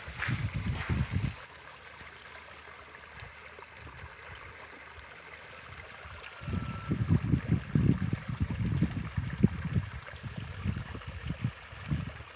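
Wind buffeting the microphone in gusts, for the first second or so and again from about six seconds in, over a faint steady rushing hiss.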